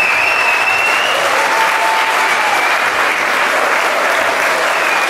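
Concert audience applauding steadily after a live song, with a high held tone over the clapping in the first second or so.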